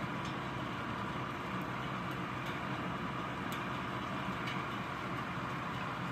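Heavy rain falling steadily in a thunderstorm, a constant rushing hiss with a few faint taps of drops.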